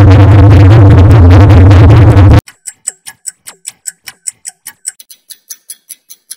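Edited clock-ticking sound effects. First comes a very loud, bass-heavy electronic, synth-like version that cuts off suddenly after about two and a half seconds. Then rapid clock ticks follow, about six a second, turning faster and fainter about five seconds in.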